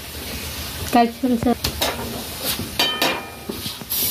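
Roti cooking on a flat griddle (tawa) on a gas stove: a faint steady sizzle with light clinks and taps of utensils, and a louder hiss near the end as the roti is handled. A short call is heard about a second in.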